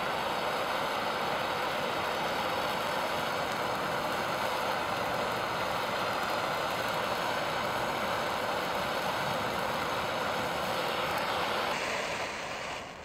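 Handheld gas torch burning with a steady hiss, its flame held on the rubber jacket of a thermoset cable; the hiss drops away shortly before the end.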